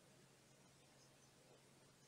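Near silence: faint room tone with a low steady hum.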